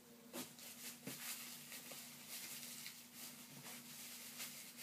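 Faint rustling and crinkling of plastic cling wrap being worked loose from a boxed figure, with a few soft clicks, over a steady faint hum.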